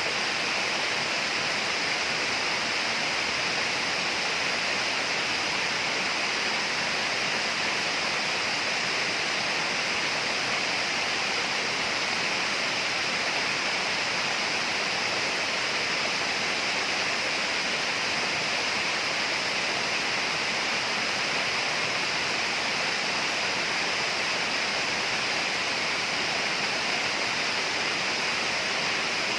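Steady rainforest ambience: an even, unbroken hiss with no distinct calls or events.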